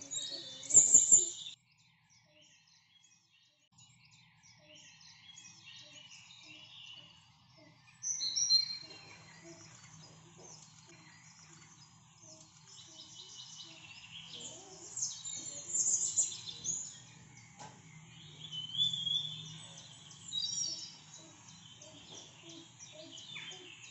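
Small birds chirping and twittering in short bursts on and off, loudest about a second in, over a faint steady low hum.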